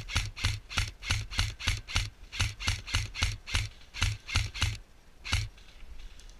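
Footsteps of a player moving on foot, about three steps a second, each a low thud with a crackly scuff; they pause briefly twice and stop about five and a half seconds in.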